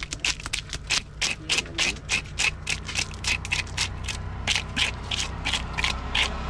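A knife blade scraping the scales off a large carp on a wooden chopping block, in quick rhythmic strokes of about four or five a second.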